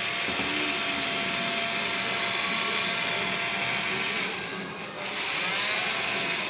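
Small toy-car DC motor of a homemade bottle vacuum cleaner running with a steady high whine. It drops off briefly a little past four seconds in, then runs again.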